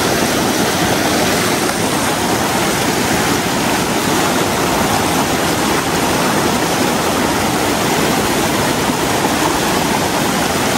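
River water rushing steadily over rocks.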